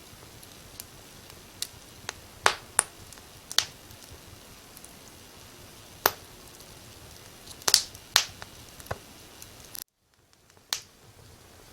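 Wood fire crackling: irregular sharp pops and snaps over a low steady hiss. About ten seconds in, the hiss briefly drops out almost entirely, then comes back.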